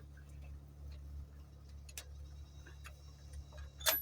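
Scattered sharp clicks and taps of hand tools on engine parts during a top overhaul, the loudest near the end, over a steady low hum.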